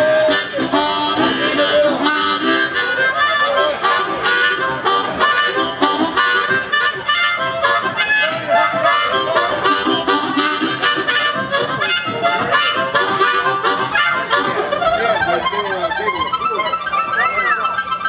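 Blues harmonica cupped against a vocal microphone, playing a train-imitation solo: a steady chugging rhythm with bent notes, over an amplified rock band.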